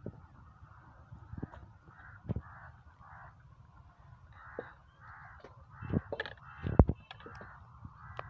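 Crows cawing over and over in quick succession, with sharp metallic knocks and clanks in between, the loudest a couple of clanks near the end.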